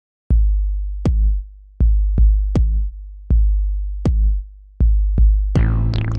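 Background music: an electronic drum-machine beat of deep kick-drum thumps and sharp hits, with a layer of synth notes coming in near the end.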